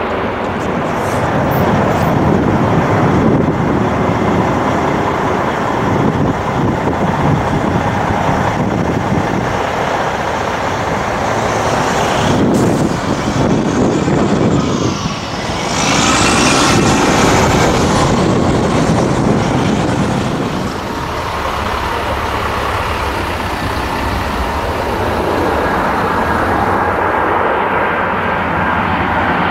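Loud, continuous jet engine noise from four-engine airliners. A Boeing 747 lands and rolls out, its engine noise dipping briefly about halfway through and then surging again. Near the end comes the engine noise of an Airbus A340 at takeoff power as it lifts off and climbs toward the listener.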